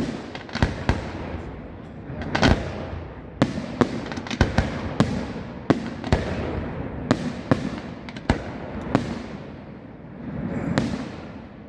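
Fireworks going off: a dozen or more sharp bangs at irregular intervals, a few coming in quick pairs, some with a short echo after them.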